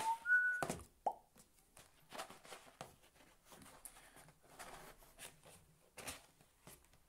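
Printed cardboard box being handled and worked open on a table: faint rubbing and scraping of cardboard with small light taps. In the first second there are a couple of short squeaky tones.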